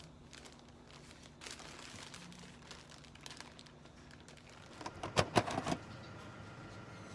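Crinkling and rustling of something being handled, with a quick cluster of sharp clicks or knocks about five seconds in.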